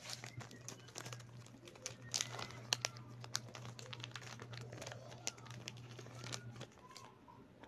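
Foil snack-cake wrapper crinkling and tearing as it is pulled open by hand, in many quick irregular crackles.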